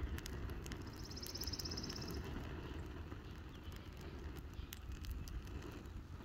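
Open fire burning a welcome mat in a hollow tree stump: scattered sharp crackles and pops over a low, steady rumble. A short, rapid high trill sounds about a second in.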